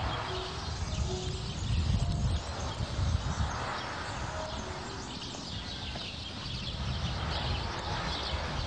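Farmyard ambience: chickens clucking with a few short, scattered calls over a steady low rumble of outdoor noise.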